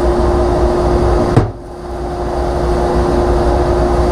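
Dust collector running with a steady hum as suction pulls dust through 6-inch plastic pipe. About a second and a half in, a table saw cabinet door with a rubber gasket is slammed shut with one hard knock, after which the airflow sound dips and builds back up; the slam knocks caked dust loose for the suction to carry away.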